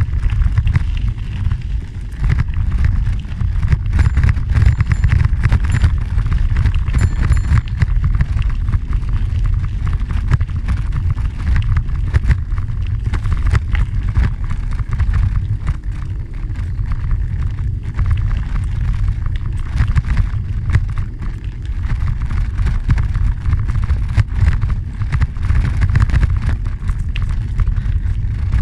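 Bicycle tyres rolling on a gravel trail under a loud, steady wind rumble on the microphone.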